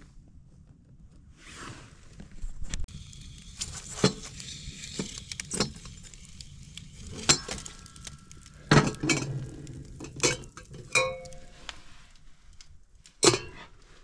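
Sharp metallic clanks and clinks, some ringing briefly, from handling a cast-iron wood stove's door and an enamel pot on its top. The loudest clank comes near the end.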